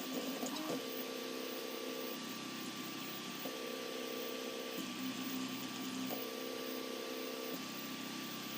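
Motors of a LEGO-built 3D printer running with a steady whine, the pitch switching back and forth between a higher and a lower note about every second and a half as the print head moves one way and then the other.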